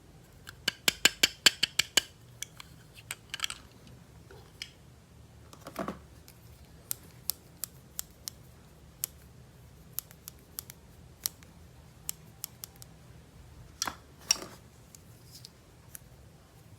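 Scissors snipping quickly about ten times during a toy unboxing, then scattered single clicks and two duller knocks from handling the packaging.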